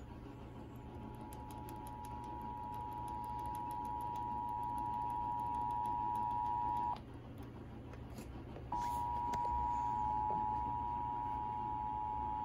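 Emergency Alert System two-tone attention signal (853 Hz and 960 Hz together), a steady dual-tone alarm that announces a relayed severe thunderstorm warning. It swells over the first few seconds, cuts out about seven seconds in, and resumes under two seconds later.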